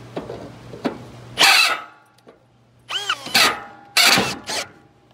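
Ridgid cordless drill boring with a large twist bit in three short bursts, with a whine that rises and falls near the middle. The bit is biting super hard into the hole.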